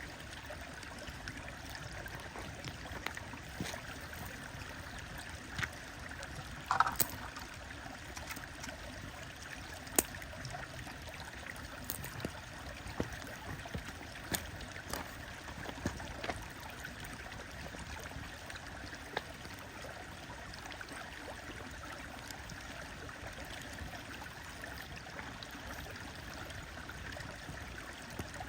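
Campfire crackling, with sharp scattered pops (a little cluster about seven seconds in, a single loud pop around ten seconds), over a steady flowing stream.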